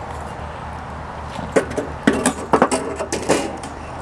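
Metal cookware clanking: about half a dozen sharp knocks and clatters with a brief ring, bunched between about a second and a half in and near the end.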